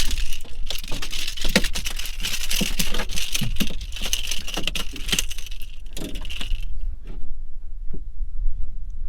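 Fishing reel being cranked to bring in a hooked fish: a fast metallic clicking and rattling that stops abruptly about two-thirds of the way through, over a steady low rumble.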